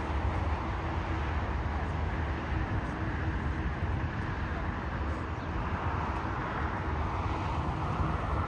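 Steady rushing jet-engine noise from distant airliners across the airfield, over a low rumble. It swells a little near the end.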